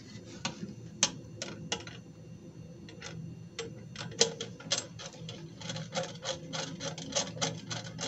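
Screwdriver tightening the screw in the plastic base of a toilet's dual-flush valve, making a run of small sharp clicks, sparse at first and coming several a second from about halfway through.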